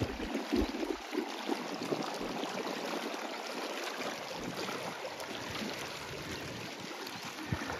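Small lake waves lapping against a rocky shore: a steady, gentle wash of water.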